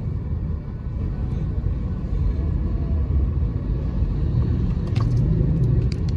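Steady low road-and-engine rumble inside a car's cabin as it is driven, with a few faint clicks near the end.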